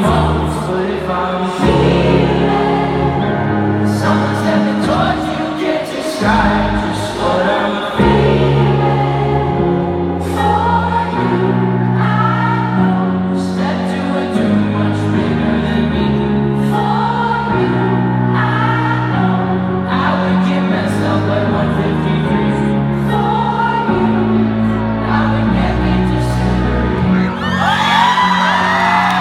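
Live arena concert: sustained keyboard chords that change every couple of seconds under a sung melody, with many voices singing along. Near the end the crowd whoops and cheers.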